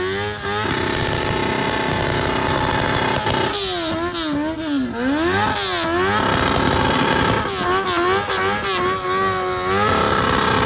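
Motorcycle engine revved hard over and over: held at high revs for stretches of a couple of seconds, with a run of quick blips rising and falling in pitch in the middle.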